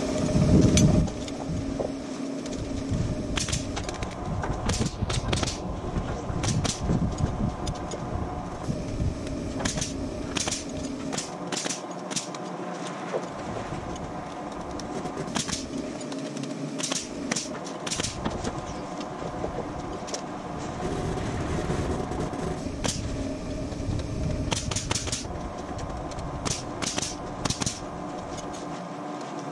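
DeWalt pneumatic framing nailer firing nails into wooden roof truss lumber: sharp shots come singly and in quick pairs or clusters, scattered throughout, over a steady mechanical hum.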